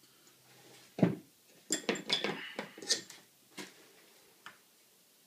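Steel pin punches clinking and tapping as they are handled and tried against the rifle's trigger guard roll pin: a dull thump about a second in, then a quick run of sharp metal clicks and a couple of single ticks.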